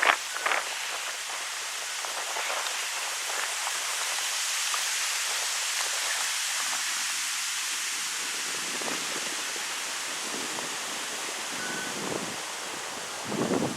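Wind blowing through birch trees: a steady high rustling hiss of leaves, with short louder rushes right at the start and near the end.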